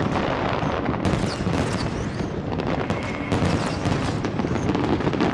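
Aerial fireworks going off in a dense, continuous barrage, with booms and crackles overlapping one another.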